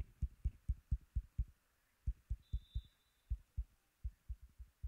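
A rapid, uneven series of short low thumps, about four a second, with a brief faint high whistle tone in the middle.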